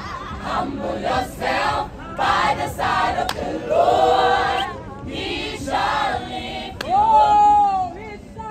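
Youth choir singing together in several voices, the melody rising and falling, with one long held note near the end.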